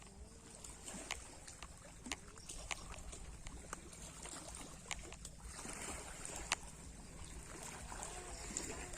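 Sea water lapping and washing, swelling in a soft wash past the middle, with a low rumble and scattered sharp clicks.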